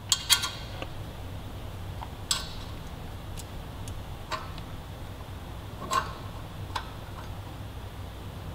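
Light metallic clicks and clinks of a stock exhaust nut being threaded by hand onto a cylinder-head stud against the header flange: a short cluster right at the start, then single clicks a second or two apart, over a low steady hum.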